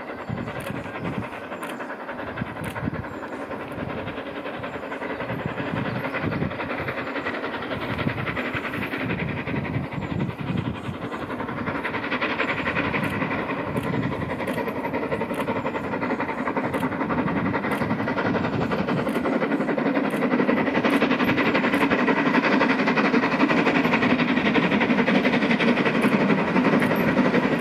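Three-cylinder LMS Royal Scot class 4-6-0 steam locomotive 46100 approaching with its train, its exhaust and the rail noise growing steadily louder.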